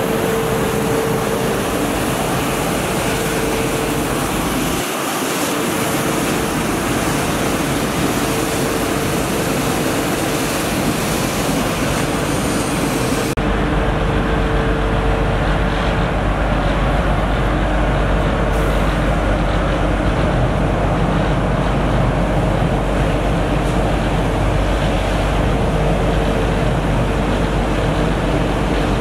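Mercedes Arocs 1833 truck-mounted street sweeper working, its engine and sweeping gear running with a steady whine throughout. About halfway through the sound changes abruptly: the high hiss drops away and a deeper rumble comes up.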